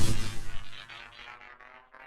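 Synthesized sci-fi energy sound effect dying away: a loud, dense pitched blast fades within the first second into a faint, rapidly pulsing electronic tail.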